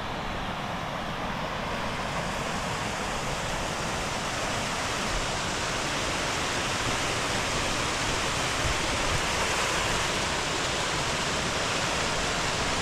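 Rushing water from a waterfall or fast mountain stream, a steady even rush that slowly grows a little louder.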